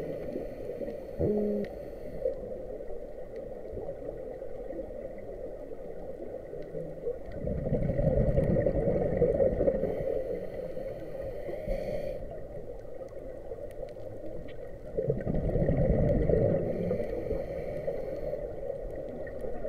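Scuba diver breathing through a regulator, picked up underwater by a camera in its housing: exhaled bubbles rush out twice, about seven seconds apart, with fainter hissing of inhaled air between, over a steady muffled hum.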